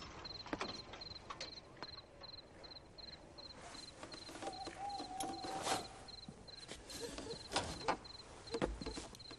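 Crickets chirping in a faint, even rhythm, about three chirps a second. Scattered soft rustles and knocks are heard, and a brief held tone comes about halfway.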